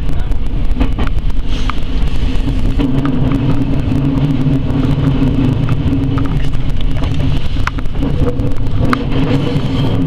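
Electric commuter train running on rails, heard from inside the leading car: a steady motor hum with scattered clicks from the wheels on the track.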